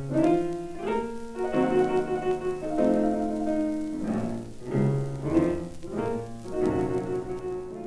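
Background music of slow piano chords, a new chord about every second.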